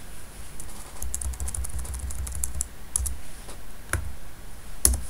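Computer keyboard being typed on: a quick run of key presses about a second in as a line of code is deleted, then a few separate keystrokes, the last one the loudest.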